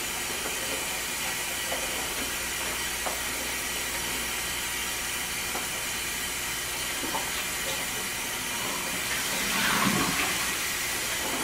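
Kitchen tap running steadily into a sink while potatoes are washed under it, the water noise growing a little louder near the end.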